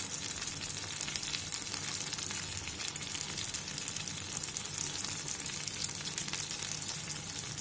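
Okra and potato curry in thick tomato gravy simmering in a steel pan: a steady sizzle with many fine crackles.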